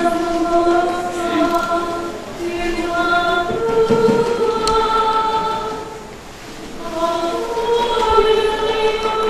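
A woman singing a psalm solo and unaccompanied, in long held notes, with a short break between phrases about six seconds in.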